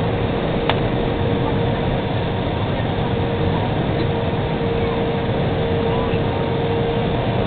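Airbus A320 cabin noise in flight: a steady rush of engine and airflow noise with a steady hum underneath. A single click about a second in.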